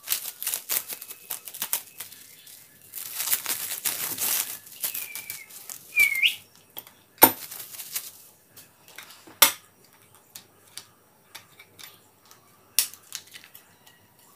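Plastic wrapping being pulled and torn off a double-ended spanner set: dense crinkling and rustling, with a short gliding squeak about midway. Sparser sharp clicks follow, three of them louder.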